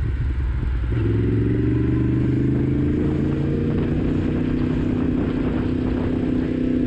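Yamaha MT-10's crossplane inline-four engine under way. Right at the start it drops in pitch at a gear change, then rises as it accelerates through the gear and settles to a steady note for the second half.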